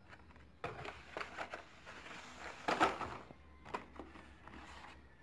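Carded Hot Wheels cars, cardboard backers with plastic blisters, rustling and clicking against each other and the cardboard case as they are handled and pulled out of the box. The handling comes in an irregular run of rustles, loudest about two and a half seconds in, followed by a couple of short clicks.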